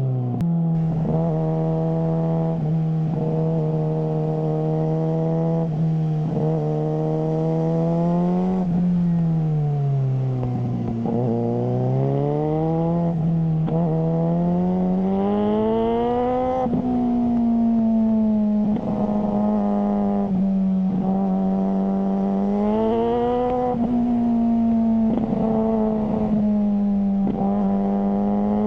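Suzuki GSR600 inline-four engine running through a GPR Ghost aftermarket exhaust, its note holding steady, dropping about ten seconds in, then climbing and holding at a higher pitch for the rest.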